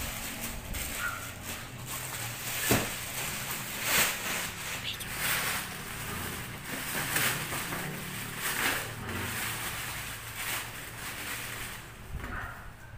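A plastic courier mailer bag being torn and pulled open by hand, with irregular crinkling and rustling and louder sharp rips about three and four seconds in.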